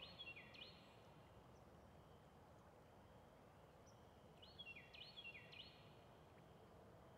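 Faint bird calls: two short runs of quick repeated high notes, one at the start and another about four and a half seconds in, over a steady low background hum.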